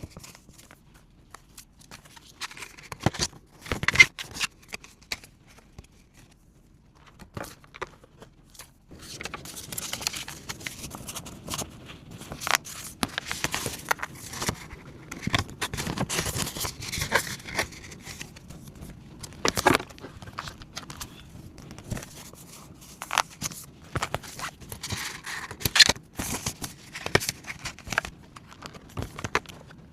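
Paper and banknotes being handled: rustling and crinkling with scattered sharp taps and clicks. There are a few isolated clicks at first, then steady rustling from about nine seconds in.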